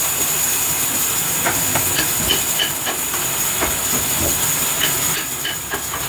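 Scattered light wooden knocks and clicks over a steady high hiss, as turned wooden pegs are pushed into the holes of a turned wooden coat-stand post.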